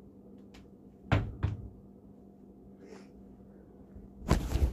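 Two sharp knocks about a third of a second apart, about a second in, with a few fainter clicks around them, over a faint steady hum; near the end a louder noisy burst begins.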